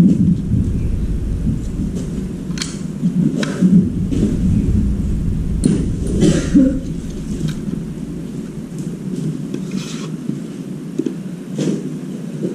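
Clicks and scrapes of a plastic screwdriver-bit case being handled on a concrete floor, over a low rumble that drops away about eight seconds in.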